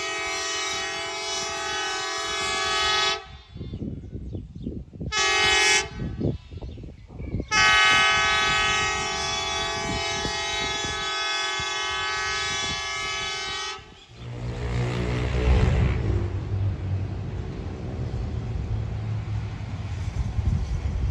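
Horn of a bus-type rail inspection car sounding three blasts as it approaches: a long blast that stops about three seconds in, a short toot, then a second long blast of about six seconds. After the horn stops, a low engine rumble with wind noise on the microphone carries on to the end.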